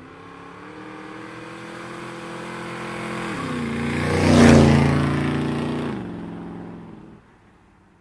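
A car driving past with its engine revving: the engine note climbs slowly, drops twice, is loudest about four and a half seconds in, then fades away.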